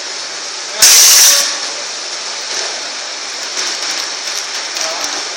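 Vertical continuous band sealer running with a steady hiss. About a second in there is a much louder burst of hiss lasting about half a second.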